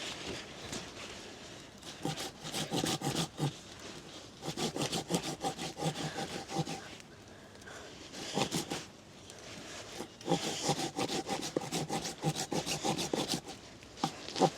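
Hand saw cutting through a wooden log in runs of quick back-and-forth strokes, with short pauses between the runs. The saw is dull and needs sharpening.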